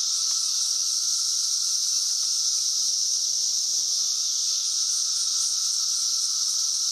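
Chorus of swarming 17-year periodical cicadas: a steady, deafening, high-pitched shrill drone, with a fainter lower hum beneath it.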